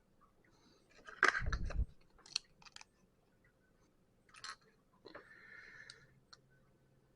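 Plastic Lego pieces clattering and clicking as they are handled and pressed together, with a dull bump against the table about a second in, then a few separate sharp clicks and a short rustle of pieces.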